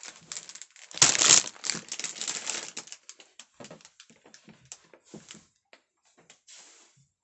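Clear plastic bags of LEGO pieces crinkling as they are handled and piled up. The rustle is loudest about a second in, then thins to scattered light crinkles.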